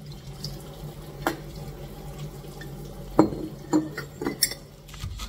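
Kitchen tap water running over glass jars being rinsed by hand, with a few sharp clinks as the glass is handled.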